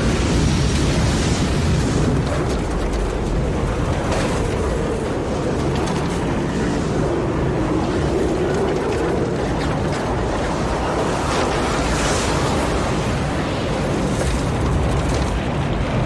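Strong wind blowing continuously, with a deep rushing roar and a howl that wavers in pitch, sinking and rising again about halfway through.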